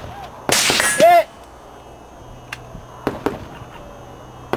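A suppressed 5.56 mm Mk12 rifle fires once, a sharp muffled crack about half a second in. A short ringing ping follows just after, the round striking a 100-yard steel target. A few faint ticks come later.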